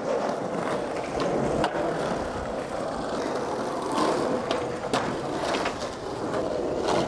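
Skateboard wheels rolling over concrete and brick paving, a steady rumble broken by several sharp clacks and knocks from the board.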